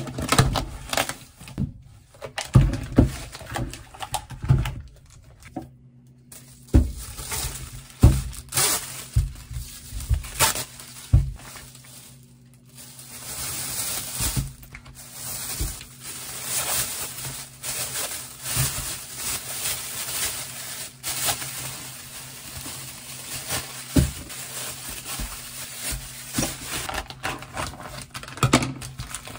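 Unpacking sounds: a styrofoam box being opened and packages knocking on a countertop, then plastic bags and sealed sausage packs rustling and crinkling as they are handled. Near the end, scissors cut through a plastic wrapper.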